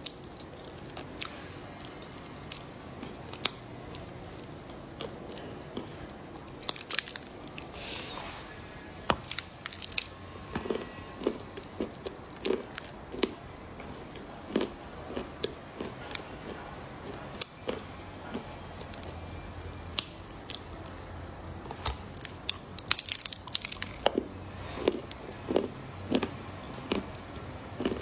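Close-up biting and chewing of a hard dark chocolate ball: sharp crunches and crackles, with runs of steady chewing at about two strokes a second.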